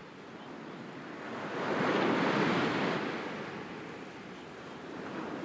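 Sea waves on a shore: one wave swells, breaks and washes back, loudest about two to three seconds in before easing off.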